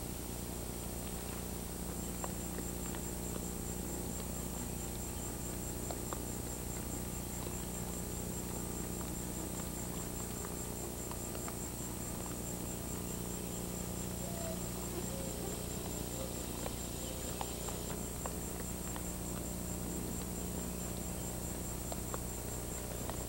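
Steady chorus of insects, a high pulsing trill that runs on without a break, over a low steady hum.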